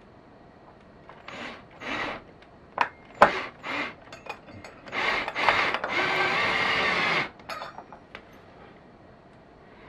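Cordless drill with a quarter-inch drive socket driving a blind bracket's mounting screw: a few short bursts with sharp clicks between them, then one steady run of about two seconds that stops abruptly, snugging the screw flush.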